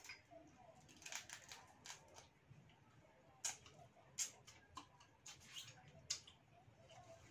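Faint eating sounds: scattered small clicks and crackles as fried mantis shrimp shells are peeled and bitten by hand, with a few sharper clicks around the middle.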